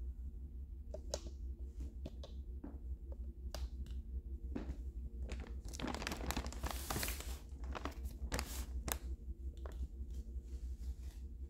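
Diapers and their plastic package being handled, crinkling and crackling. Scattered crackles bunch into a denser run around the middle, over a steady low hum.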